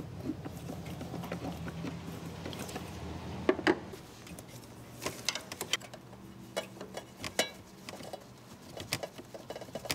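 Clicks and plastic rattles of hands unplugging the mass airflow sensor connector and working the intake piping loose on a Volvo 850 Turbo engine. Two sharp clicks come about three and a half seconds in, with more scattered clicks later and a quick run of small ones near the end.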